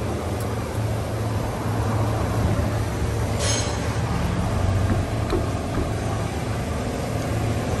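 A vehicle engine running steadily at idle, a low even hum, with a brief hiss about three and a half seconds in.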